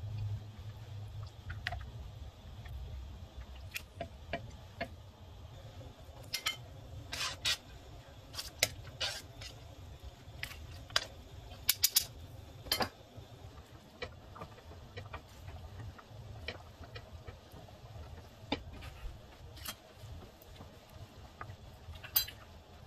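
Whisk stirring sauce in a metal pot, making scattered clicks and taps against the pot, thickest around the middle, over a steady low hum.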